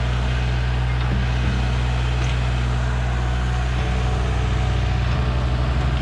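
Compact tractor's engine running steadily, a low even hum.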